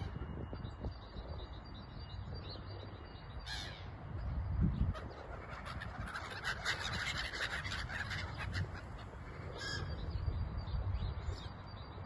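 Gulls calling as they fly over, with a flurry of harsh calls in the middle, over a low rumbling background.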